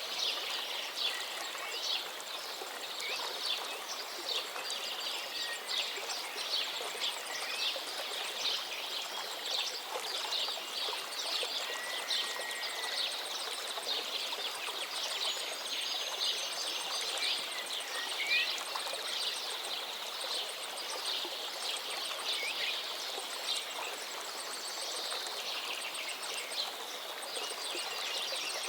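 Many small birds chirping and singing at once in a dense, continuous chorus, with a few clear whistled notes standing out over it.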